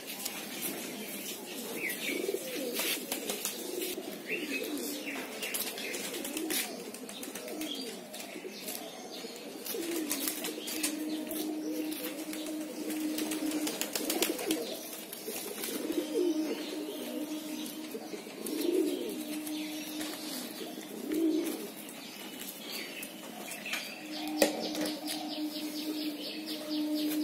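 Domestic pigeons cooing, with wing flaps and sharp clicks among them. A steady low hum comes in three times, for a few seconds each.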